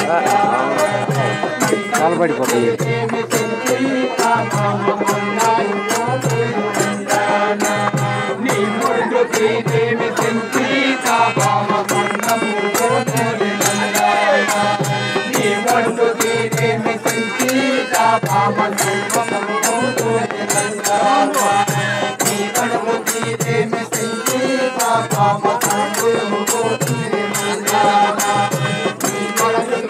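Traditional Indian folk music accompanying a dance, with a quick, steady beat of sharp rattle-like percussion strikes over a sustained drone and a wavering melody line.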